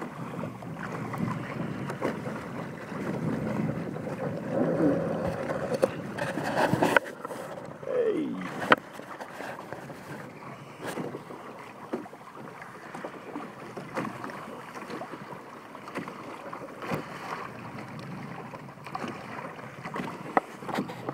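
Water splashing and rushing along the hulls of a Hobie Tandem Island sailing kayak under way, with wind buffeting the microphone and a few brief knocks.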